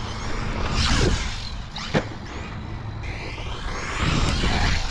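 Rlaarlo Omni Terminator RC monster truck's brushless electric motor whining up and down with the throttle as the truck drives over dirt. There is a sharp knock about two seconds in, and a rising whine near the end.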